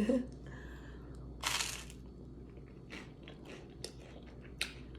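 A person eating close to the microphone: one crunchy bite about a second and a half in, then chewing with a few small mouth clicks.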